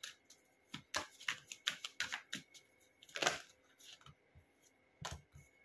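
Tarot cards handled and shuffled by hand: irregular light clicks and snaps of card against card, with one longer brushing sweep about three seconds in.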